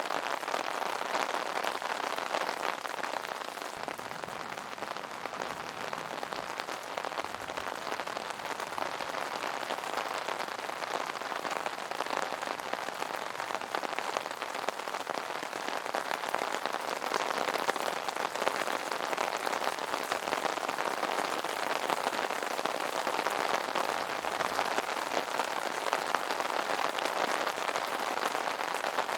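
Steady rain pattering on an umbrella, a dense even spatter of drops.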